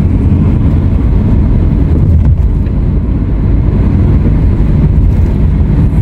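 Steady low rumble of a car driving on a road, with tyre and engine noise heard from inside the cabin.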